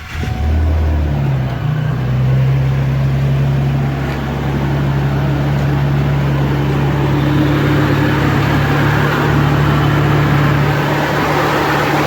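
1999 Ford F-150 engine catching right at the start and settling into a steady idle, with the newly fitted AC compressor clutch and belt turning. It runs smoothly, without squeal.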